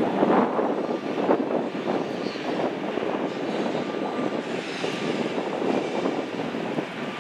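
Steady rushing vehicle noise that flickers in level throughout, with no clear engine pitch.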